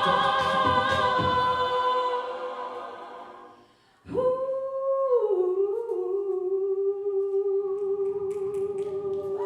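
An a cappella group's sustained sung chord fades away to near silence. About four seconds in, voices come in humming a new chord, which slides down in pitch and then holds steady.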